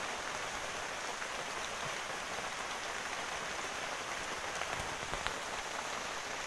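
Fairly heavy rain falling steadily on the leaves of the trees, with a few single drops ticking close by.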